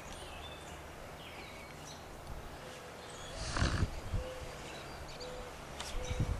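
Steady low outdoor rumble, with a brief cloth rustle about three and a half seconds in as the cotton burial flag is pulled taut and folded over the casket.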